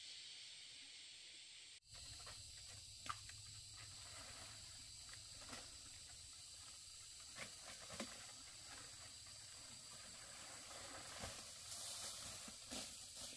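Faint outdoor ambience: a steady high hiss with a thin high whine, and scattered light rustles and clicks.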